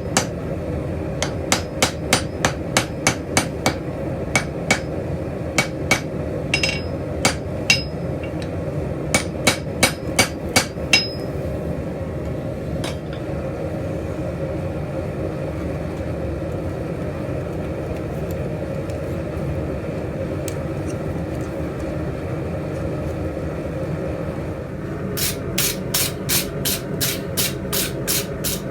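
Hand hammer blows on steel at the anvil, about three a second, a few ringing higher, stopping about eleven seconds in. A steady hum follows, then the hammering starts again near the end.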